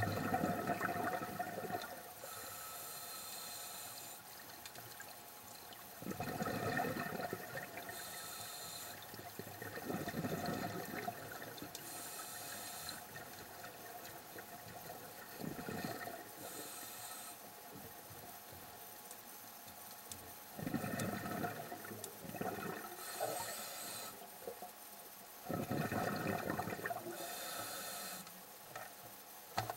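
Scuba diver breathing through a regulator underwater: a hiss on each inhale, then a gurgling rush of exhaled bubbles, about six breaths, one every five seconds or so.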